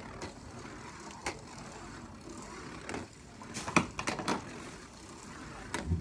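Imperial Dragon Beyblade Burst top spinning in a plastic stadium. Its tip makes a steady whirring scrape on the plastic floor, with sharp clacks as it knocks against the stadium wall, several of them together about four seconds in.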